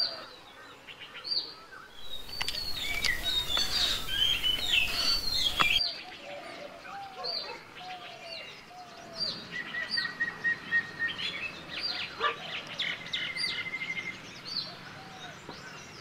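Several wild songbirds calling: many short whistled and chirping notes, with a quick even trill twice in the second half. Background hiss rises for a few seconds in the first half.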